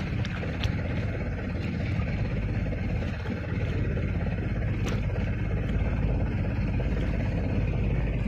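Outrigger fishing boat's engine running steadily, a low continuous drone, with two short sharp clicks, one about half a second in and one about five seconds in.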